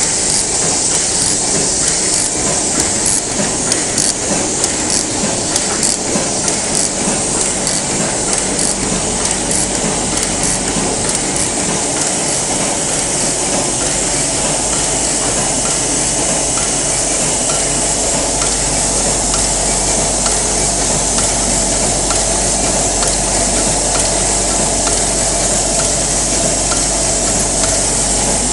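Muller Martini HB35 book-sewing machine running: a dense, steady mechanical clatter of many fine rapid clicks over a constant hiss. A low hum joins about eight seconds in.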